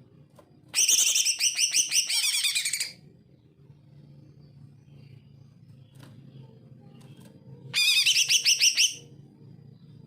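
Male green leafbird (cucak ijo) singing in two bursts of quick, repeated high notes. The first burst lasts about two seconds and the second about a second, near the end.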